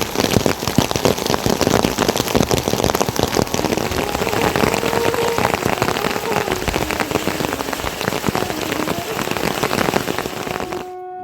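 Heavy rain falling on a surface, a dense patter of individual drops hitting. It cuts off abruptly near the end.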